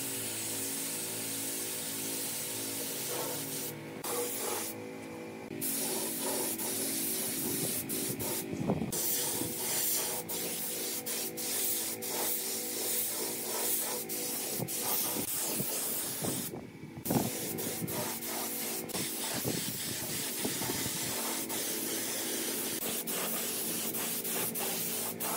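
Air spray gun with a gravity-feed cup spraying wood finish, a steady hiss of air and atomised finish. It stops briefly several times, then starts again.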